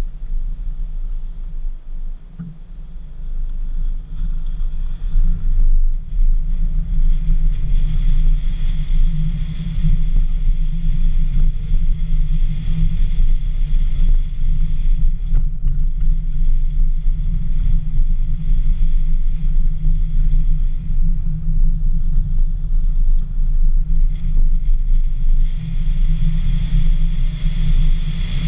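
Dacia Sandero driving along, heard as a steady low rumble of wind buffeting and road noise on the microphone of a camera mounted on the outside of the car. The rumble dips briefly about two to three seconds in, then runs steadily.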